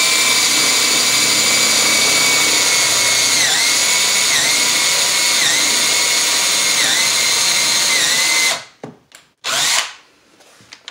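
DeWalt cordless drill boring a hole into a wooden 2x4: a steady, loud motor whine that sags briefly in pitch about five times as the bit bites into the wood. It stops about 8.5 seconds in, then gives one short burst about a second later.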